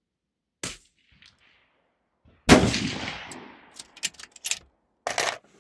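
A single unsuppressed .260 Remington rifle shot about two and a half seconds in, the loudest sound, with a ringing tail that fades over about a second. A sharp click comes before it, a quick string of metallic clicks follows, and a short rattle comes near the end.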